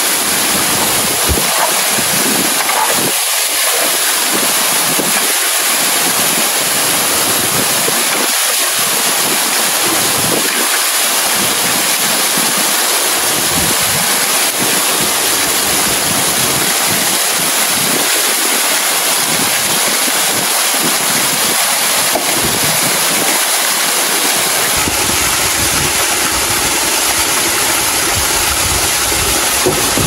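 Waterfall: a steady, loud rush of falling water. Near the end a low rumble joins in underneath.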